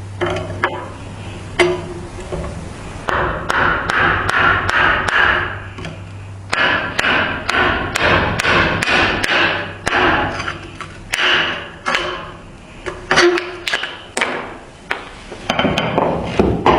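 Hand work on a rusted knife: many irregular sharp taps and knocks, with stretches of scraping in between and a low hum under the first few seconds.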